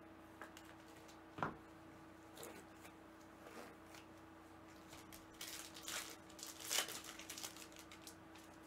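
A single knock about a second and a half in, then a couple of seconds of crinkling and tearing as a Panini Flux trading-card pack's foil wrapper is opened, over a faint steady hum.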